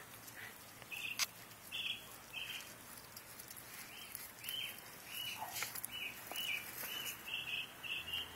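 A bird chirping over and over in short, high notes, settling into a quick, regular run of about three chirps a second near the end. A single sharp click about a second in.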